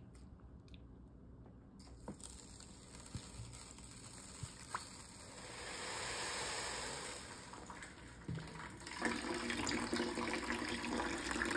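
Water poured from a plastic squeeze bottle onto wet sand and gravel in a tilted tray: a soft splashing pour that swells about halfway through, followed by a steadier running-water sound near the end.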